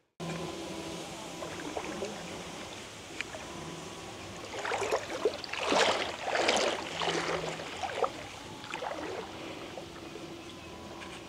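Lake water splashing and lapping, with the loudest splashes in a run around the middle, over a faint steady hum.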